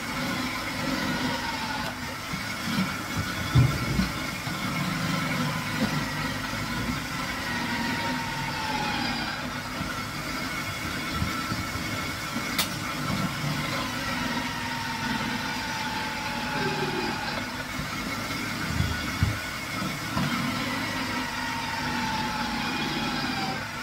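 Electric vegetable grater running steadily as squash is pushed down its feed tube and grated. Its motor whine sinks in pitch several times, with a few low knocks about four seconds in and one sharp click about halfway through.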